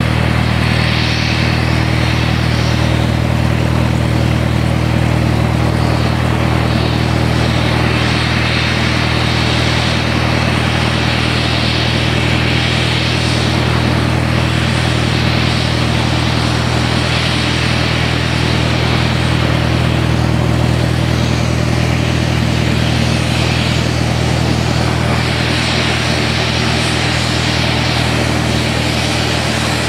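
Fairchild Metroliner's twin turboprop engines running at taxi power: a steady low propeller hum with a hiss of turbine noise above it.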